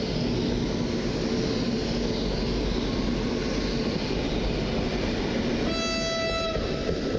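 ED72 electric multiple unit passing close by at speed, with a steady rumble of wheels on the rails. Near the end a train horn sounds one short blast of about a second.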